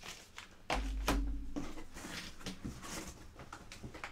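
Clear plastic bag crinkling and hard plastic comic slabs clacking as they are handled, with a heavy low thump about a second in.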